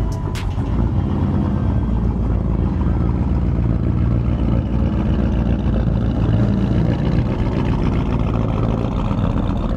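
Lowered extended-cab Chevrolet Silverado pickup's engine and exhaust running with a loud, steady low rumble as the truck drives slowly away.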